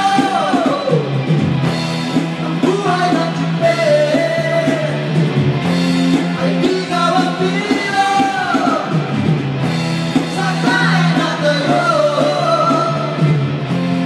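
Rock music with a singing voice, playing steadily.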